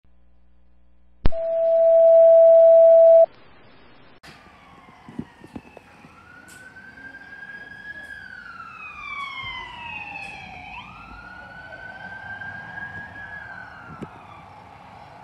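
A loud, steady, even-pitched tone for about two seconds. It is followed by quieter police car sirens wailing, their pitch sliding slowly down and back up.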